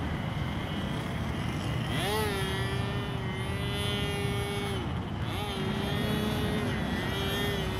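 Small engine of a radio-controlled model airplane running in flight: a steady whine that dips briefly in pitch and comes back up a couple of times as the throttle changes, over a low rumble of wind noise.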